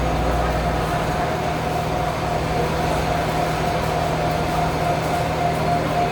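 Metal lathe running steadily: a constant low hum with a higher steady whine over a noisy mechanical rush.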